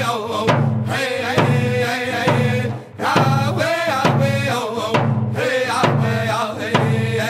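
Round dance song: a hand drum beaten in a steady beat under group singing. The loudness dips briefly about three seconds in, then the drum and voices carry on.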